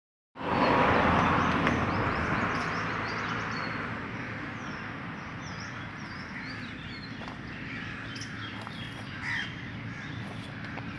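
Birds chirping and calling in short rising and falling notes. Under them is a rush of noise that is loudest about a second in and fades away over the next few seconds.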